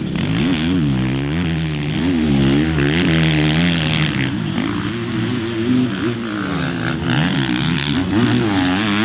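Four-stroke motocross bike engine revving, its pitch climbing and dropping again and again as the rider works the throttle through the turns.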